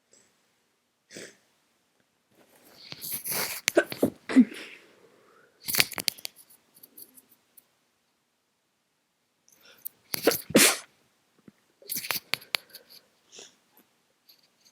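A congested person with a head cold sneezing several times, in two bouts: one about three seconds in and another about ten seconds in, each with quieter breathy sounds around the sneezes.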